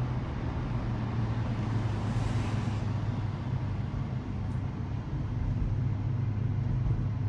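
Steady engine and road noise inside a moving car, a low even drone, with a brief hiss a little after two seconds in.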